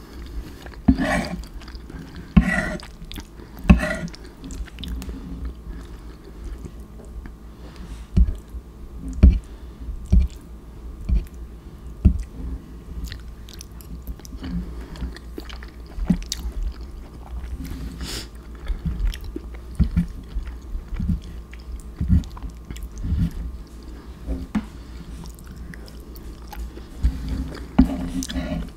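Close-up chewing and biting of mac and cheese: irregular soft mouth sounds and small clicks.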